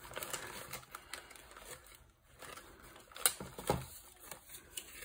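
A plastic packaging bag and a stapled paper label being handled and pulled apart: soft rustling with scattered light clicks, the sharpest a little over three seconds in and another soon after.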